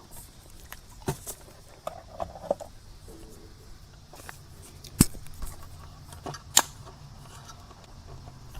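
Scattered light clicks and taps from handling the opened radio mic's casing and parts on a workbench, with sharper knocks about five and six and a half seconds in, over a faint low hum.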